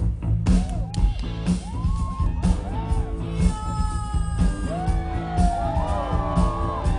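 A live band plays with a steady drum beat and heavy bass while a woman sings wordless sliding, arching notes over it. Her line grows fuller and longer past the middle.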